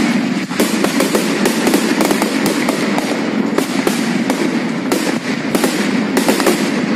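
Fireworks display: a rapid, continuous string of bangs from bursting aerial shells over steady crackling.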